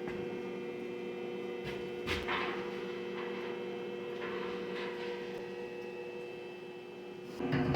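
Steady electrical hum holding several even tones, with a few faint knocks and clinks about two seconds in and again near the middle.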